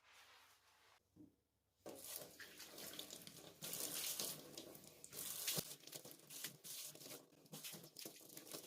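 Water running from a kitchen tap into a sink, starting about two seconds in and surging unevenly.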